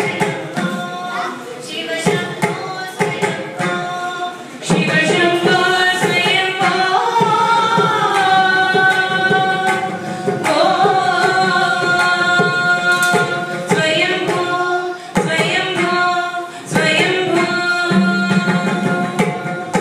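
Two women singing a Carnatic song together, with long held notes that slide in pitch, accompanied by a mridangam played by hand with frequent strokes.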